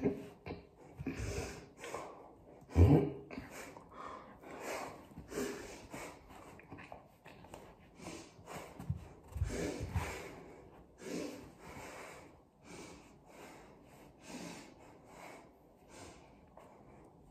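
A person breathing hard through the nose and mouth in quick, effortful puffs, with a few dull thumps, the loudest about three seconds in.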